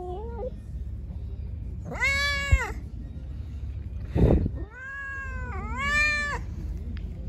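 Tabby cat meowing insistently: one long meow about two seconds in, then two more run together near the end, after the fading tail of an earlier meow at the start. A brief muffled bump about four seconds in.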